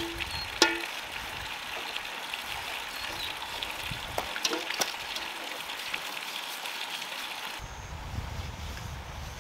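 A metal paint pot clinking a few times as a brush is worked in it, each clink sharp with a short ring; the loudest comes under a second in and two more come about halfway. Steady outdoor hiss behind, changing near the end to a low wind rumble on the microphone.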